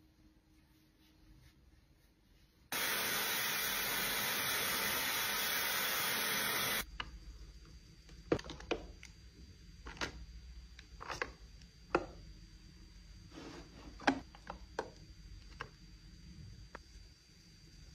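A hair dryer blows for about four seconds, starting and stopping abruptly. Then come a series of sharp clicks and taps as makeup compacts and cases are picked out of a clear acrylic organizer and set down on a tabletop.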